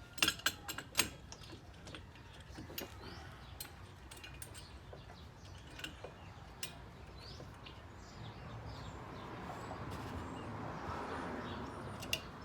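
Metal clinks and clicks of a clamp being handled and refitted on a brake caliper, densest in the first second and scattered after, with birds chirping. A broad rushing swell rises from about two-thirds of the way through and fades near the end.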